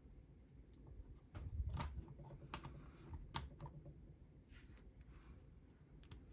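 A few faint, scattered clicks and a soft knock from handling a 30-pin charging cable, an iPod touch and a power bank; the iPod's plug-in charging chime does not sound, which the owner puts down to a bad cable.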